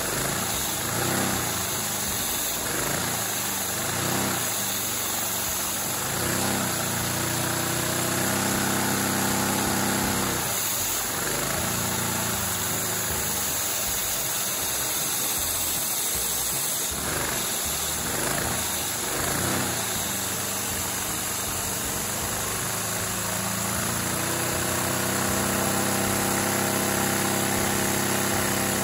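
A Lego square-4 vacuum engine running on the suction of a vacuum cleaner: a steady loud rush of air and motor hum with a fast plastic rattle of pistons and valves. The pitch of the running rises and falls several times as the engine speeds up and slows down.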